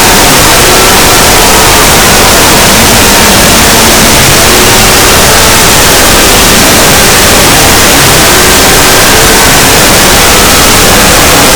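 Extremely loud, heavily distorted static-like noise held flat at full volume, a horror-meme punishment sound effect, with faint wavering tones buried under the hiss.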